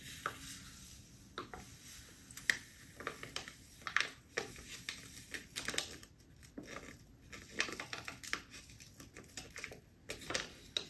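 A paper drink-mix pouch crinkling and being tapped and shaken as its powder is poured into a mug of water: a run of small, irregular crackles and taps.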